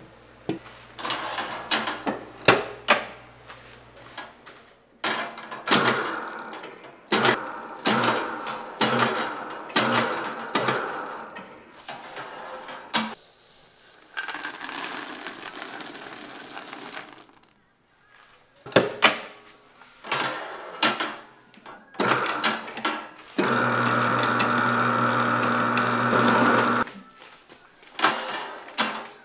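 Commercial planetary stand mixer beating cookie dough in its steel bowl, with repeated knocks and clatter from the beater and the bowl. About halfway through there is a rattling pour as nuts are tipped in from a steel tray. Near the end the mixer's motor runs with a steady hum for a few seconds.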